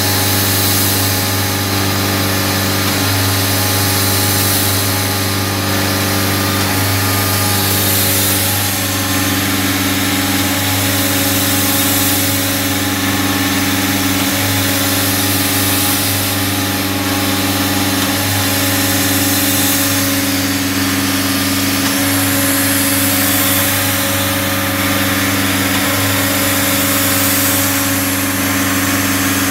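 Self-generating nitrogen servicing cart running steadily with an even machine hum. A soft rush of air swells and fades about every four seconds as the nitrogen booster strokes.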